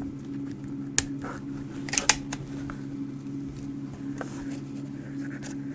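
Handling clicks and taps from a Walther P.38 pistol being turned over and examined: a sharp click about a second in, a quick pair of clicks just after two seconds, then a few fainter ticks. A steady low hum runs underneath.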